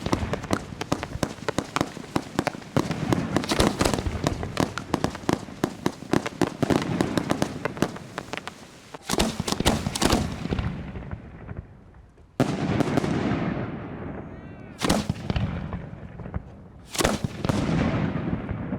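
Professional aerial fireworks going off. About nine seconds of dense, rapid crackling pops, then separate loud shell bursts every two to three seconds, each fading away.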